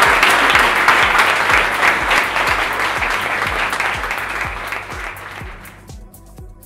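Audience applauding over background music with a steady beat; the applause fades out over the last couple of seconds, leaving the music fading away.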